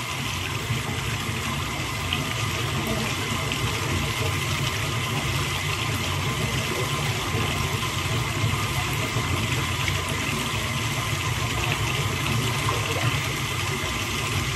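Steady rush of running water in a bathtub.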